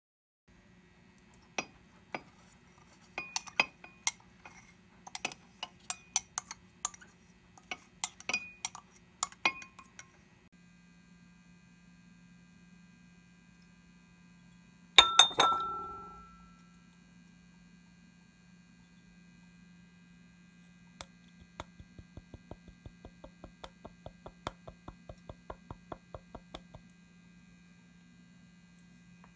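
Glassware clinking over a steady low hum: scattered light clinks for the first ten seconds, one loud ringing clink about fifteen seconds in, then a quick even run of light taps, about five a second, for several seconds.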